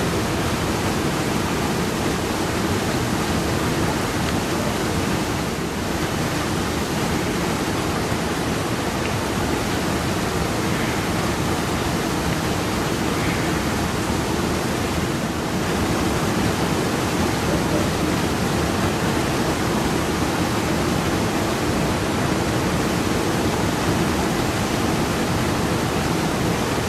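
The waterfall at Red Rock Falls rushing steadily: an unbroken, even noise of falling water.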